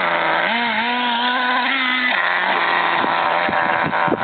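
Small nitro engine of a radio-controlled truck revving hard. It holds a high, steady pitch, drops about two seconds in, then gives several quick throttle blips.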